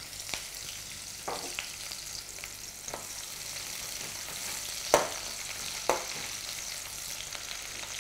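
Sliced red onions and whole spices frying in hot oil, sizzling steadily, while a metal spoon stirs them and clinks against the hammered aluminium pot several times, the sharpest clink about five seconds in.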